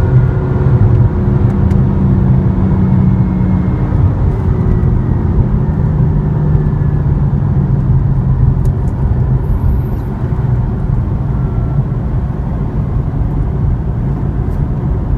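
BMW M4's 3.0-litre twin-turbo inline-six running steadily while the car is driven, with tyre and road noise. The engine note drops a little in pitch about four seconds in.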